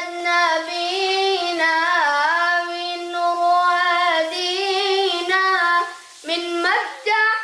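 A child singing a sholawat (Islamic devotional chant praising the Prophet) unaccompanied, in long held notes that bend and waver. The voice breaks off briefly about six seconds in, then resumes.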